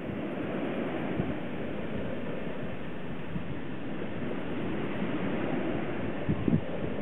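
Steady rush of sea surf, with wind on the microphone and a few soft low thumps near the end.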